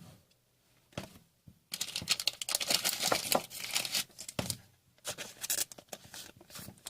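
A trading card pack's wrapper being torn open and crinkled, in two noisy stretches about two and five seconds in, with a few sharp clicks of handling.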